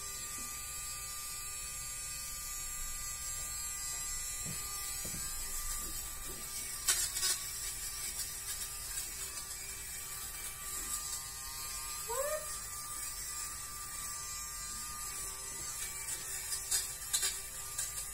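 Dafko electric lint remover (fabric shaver) running steadily as its blades shave lint off a fabric sofa cushion. A few sharp clicks and a short rising squeak break in.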